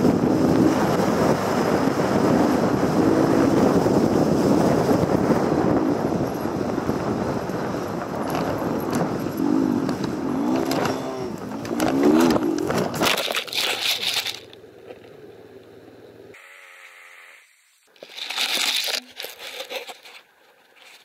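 Lifan GY-5 enduro motorcycle running hard over a bumpy forest track, its engine revving up in short bursts, then crashing about thirteen seconds in. After the crash the engine sound stops and there are scraping and rustling noises in the brush.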